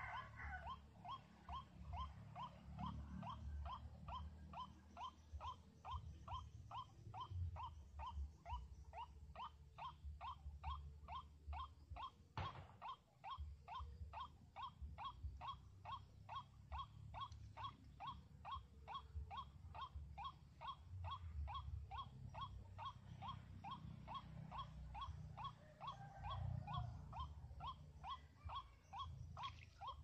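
White-breasted waterhen (ruak-ruak) calling: a fast, even series of short notes, about three a second, kept up without a break. A low rumble runs underneath, and there is one sharp click about halfway through.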